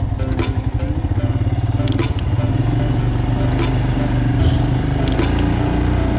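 Motorcycle engine running at low riding speed, heard from on the bike. Its beat flutters at first and evens out about two and a half seconds in, with a few light clicks or rattles over it.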